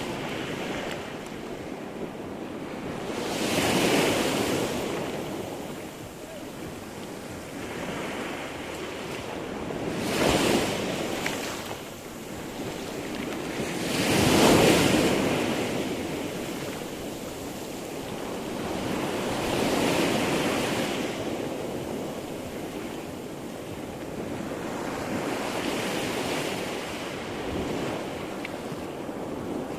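Sea surf: waves rolling in and breaking one after another, each rising to a rush and washing away over a few seconds, about every five or six seconds. The loudest wave breaks about halfway through.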